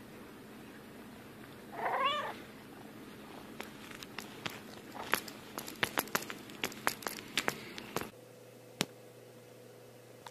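A cat gives one short, wavering meow, followed by a run of irregular sharp clicks lasting about four seconds and one last click a little later.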